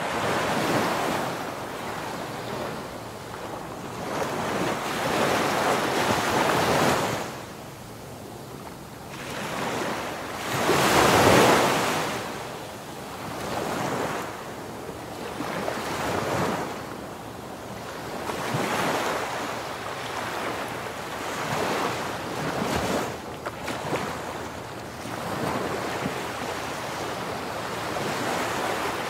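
Ocean waves breaking and washing up on a shore, the surf swelling and receding every few seconds in a steady hiss, the biggest wave crashing about eleven seconds in.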